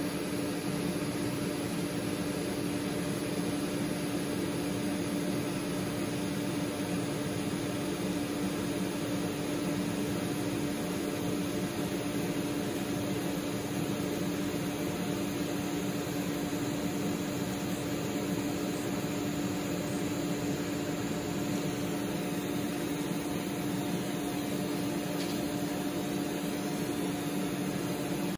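TIG welding arc on a stainless steel exhaust canister inlet: a steady hissing buzz with a constant low hum under it, unbroken throughout.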